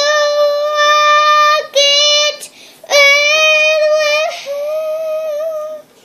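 A young girl singing unaccompanied, holding long notes at a nearly steady pitch in four phrases with short breaks between them, and stopping shortly before six seconds in.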